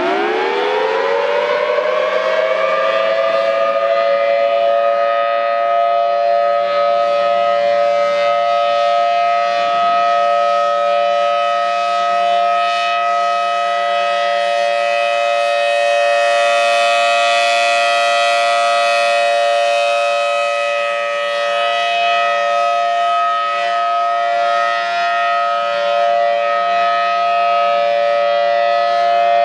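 Federal Signal Thunderbolt 1000T tornado siren winding up, its two-note chord rising in pitch over the first few seconds, then holding a steady tone: the siren's alert signal.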